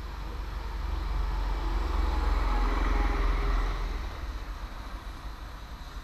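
A motor vehicle passing close by: the engine and tyre noise swells over about two seconds, peaks, then fades, over a steady low rumble.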